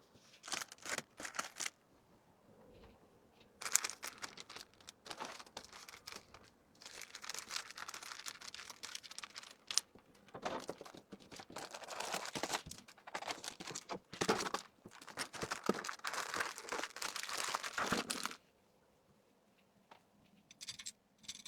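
Plastic packaging crinkling in irregular bursts as items are handled and packed into an order; it stops about three seconds before the end.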